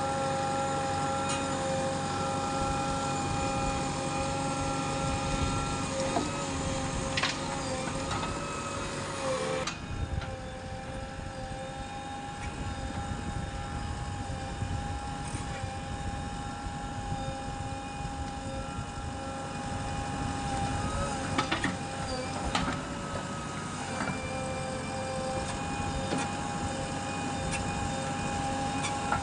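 JCB 3DX backhoe loader's diesel engine running under work, with a steady whine over a low rumble that dips in pitch a few times as the machine takes load. A few sharp knocks are heard along the way, most of them past the middle.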